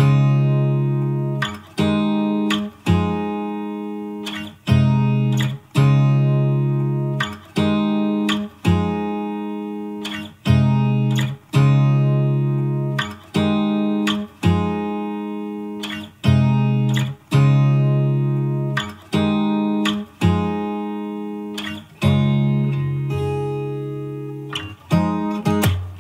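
Background music: a guitar plucking chords, each struck and left to ring out, about one a second.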